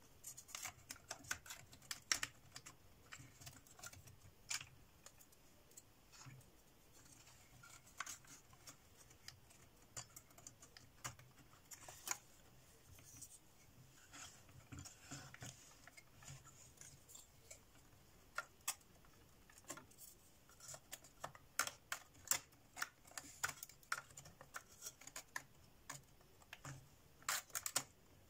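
Faint, irregular clicks and taps of thin laser-cut plywood parts being handled and pressed into place on a wooden clock model, growing busier in the second half with a quick cluster of clicks near the end.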